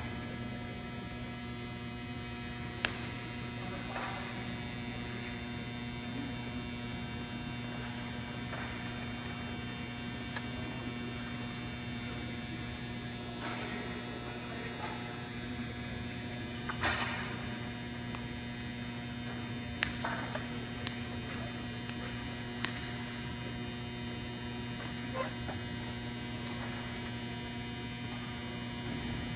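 Steady electrical mains hum, with a few faint scattered knocks and clicks.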